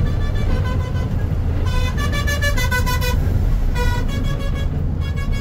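A vehicle horn honking in several blasts that shift in pitch, loudest about two to three seconds in and again about four seconds in. Underneath is the steady low rumble of the truck's engine and road noise.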